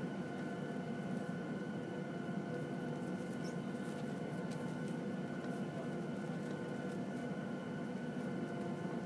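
Boeing 737-700's CFM56 turbofan engines running at low taxi power, heard inside the cabin: a steady rumble under a steady high whine, with a few faint light clicks.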